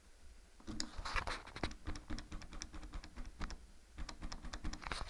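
Quick, irregular clicking and rattling from the mechanism and handling of a 1980s Telecom gold payphone, with one sharp clunk near the end.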